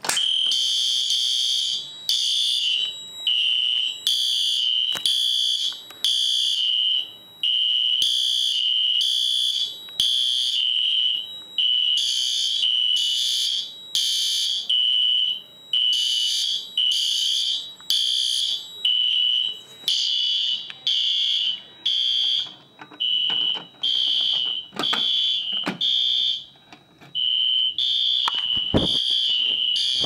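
Fire alarm horns sounding in repeated short, loud, high-pitched electronic blasts, set off by a manual pull station being pulled: the system is in alarm.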